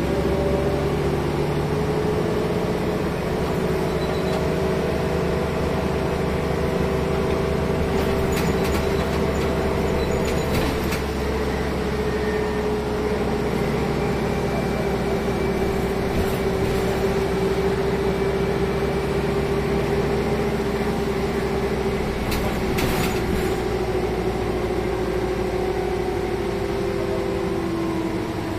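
Renault R312 city bus heard from inside the passenger cabin while driving along, its engine and drivetrain running with a steady hum and whine that drifts slowly in pitch. A few brief rattles or clicks come from the body partway through.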